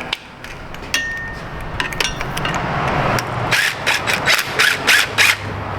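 Hand tools on metal while the old AC compressor is being freed from its mounting: scattered clicks, then a quick run of about eight sharp metallic knocks, roughly five a second, in the second half.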